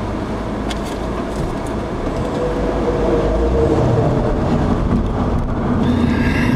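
Engine and road noise heard inside a car's cabin as it pulls away and gathers speed: a steady low drone that grows a little louder after a few seconds, with a faint engine hum through it.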